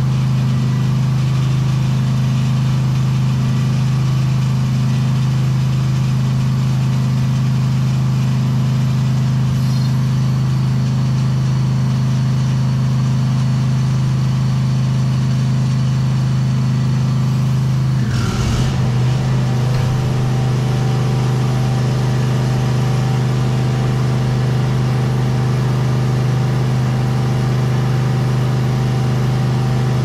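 Air compressor running with a steady low hum while supplying an air line for flushing an air-conditioner condenser. About 18 seconds in there is a short hiss of compressed air with a falling tone, as the flush gun blows flush through the lines, and the hum changes slightly after it.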